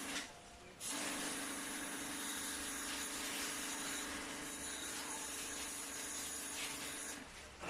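Motor-driven sprayer jetting water during air-conditioner cleaning: a steady spray hiss over a constant pump hum. It cuts out briefly just after the start and again shortly before the end, as the spray is stopped.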